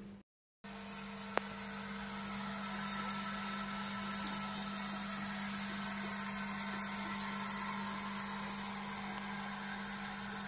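Aquarium aerator (air pump) humming steadily while air bubbles rise from an airstone in the tank water. There is one brief click about a second and a half in.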